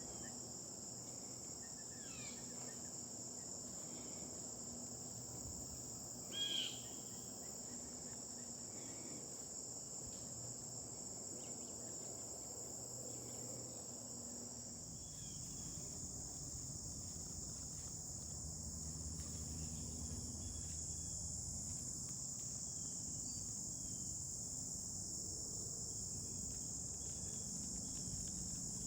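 Steady chorus of insects, a continuous high-pitched trill, with a single brief chirp about six seconds in.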